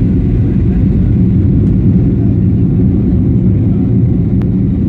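Boeing 737 cabin noise in flight: a steady, loud low rumble of engines and airflow heard from a passenger seat, with a single small click about four and a half seconds in.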